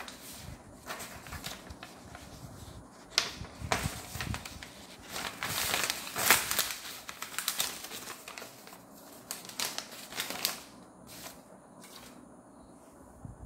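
Sheets of A4 copy paper rustling and crinkling as they are handled, in irregular bursts, loudest about three and six seconds in and dying down near the end.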